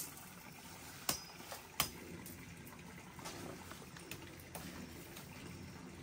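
Faint, steady trickle of running water from a small stream, with two sharp clicks about a second and two seconds in.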